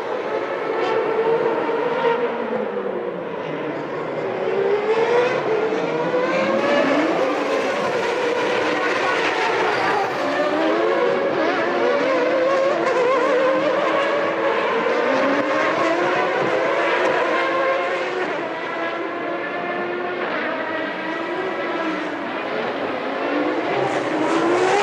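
Several Formula One cars' high-revving racing engines, their notes overlapping as the cars pass one after another. The pitch climbs and drops again and again through gear changes and braking.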